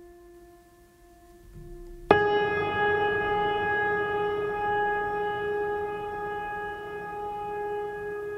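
Background music: a soft held tone, then about two seconds in a sudden louder sustained note rich in overtones that slowly fades.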